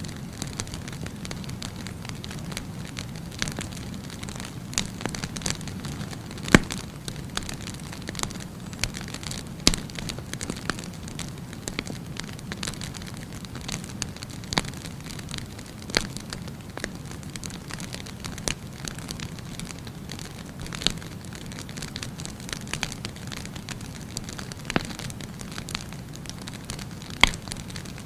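Firewood burning in a bonfire: a steady low rush of flame, with irregular sharp crackles and pops throughout and a few louder snaps.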